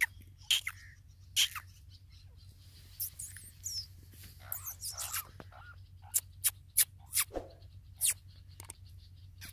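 Scattered short, sharp, squeaky bird chirps at irregular intervals, over a low steady hum.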